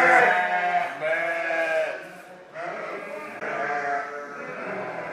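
Sheep bleating: several wavering calls, each about a second long, one after another.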